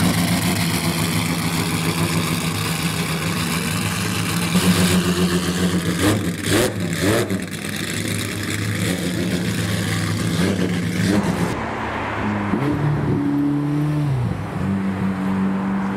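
Supercar engine running at low revs, with a quick blip of the throttle about six seconds in and a rise and fall in engine pitch a little after twelve seconds.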